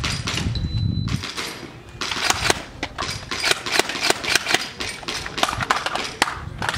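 A shot timer's short high beep, then, from about two seconds in, a rapid string of airsoft gun shots, several a second, as a competitor shoots a timed stage.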